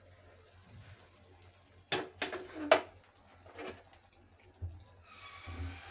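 Pressure cooker lid being opened and lifted off, with two sharp metal clanks about two seconds in; the cooker's pressure has already been let out. A faint hiss follows near the end.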